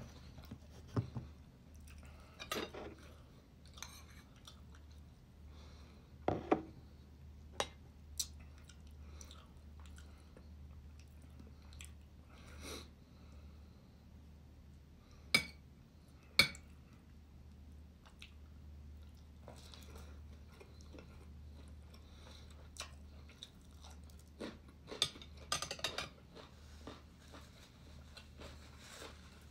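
Eating sounds: chewing, with scattered sharp clicks of a metal spoon against a ceramic plate, two of them louder about halfway through and a quick cluster near the end. A steady low hum lies underneath.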